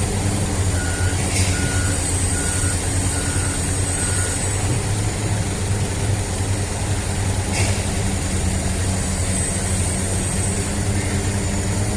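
Heavy diesel engines of an excavator and articulated dump truck running steadily, with a backup alarm beeping five times over the first few seconds. Two short sharp knocks, one about a second in and one about halfway.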